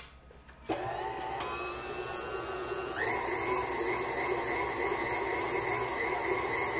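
KitchenAid Artisan stand mixer switched on about a second in and running with a steady motor whine. It steps up to a higher speed about three seconds in, its flat beater mixing flour into cookie dough.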